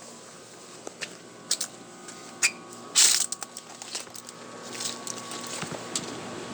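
Footsteps crunching on dry ground, a few separate steps with the loudest crunch about three seconds in. Under them, the steady low hum of a 3-ton Carrier air-conditioning condenser running.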